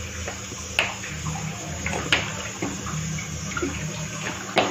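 Sesame oil being poured into a hot metal kadai, a steady liquid pour with a few sharp ticks.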